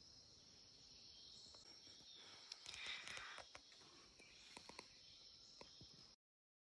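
Faint forest ambience: a steady high-pitched insect drone with a few faint clicks and a slightly louder brief sound about three seconds in. The sound cuts off to silence near the end.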